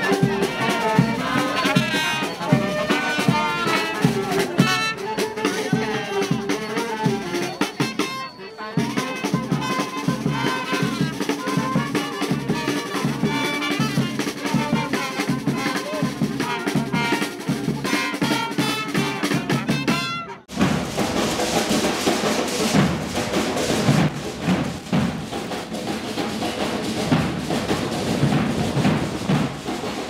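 Frevo brass band music: trumpets and other brass playing a fast tune over drums, with a short break about 8 seconds in. About two-thirds of the way through it cuts abruptly to a drum corps playing, dense rhythmic drumming without brass.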